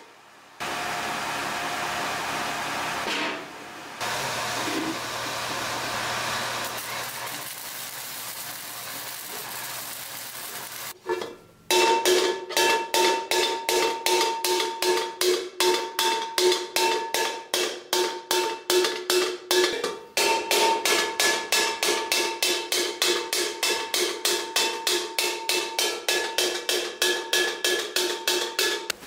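A hammer beats a steel bascinet helmet shell held over a stake, in fast steady blows of about three or four a second, each ringing metallically. For the first ten seconds or so, before the hammering starts, there is a steady hissing noise.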